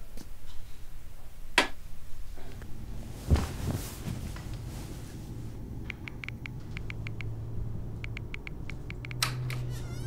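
A few scattered knocks and a dull thump, then a run of quick, light clicks from a smartphone's on-screen keyboard as someone types, over a low steady hum.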